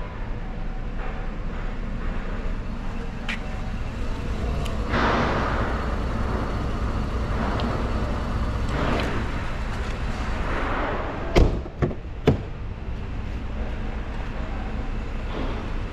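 Two sharp clicks about a second apart, two-thirds of the way in: the latch and handle of a 2011 Mercedes-Benz E300's rear door as it is opened. Under them is a steady low hum, with a few swells of rustling noise.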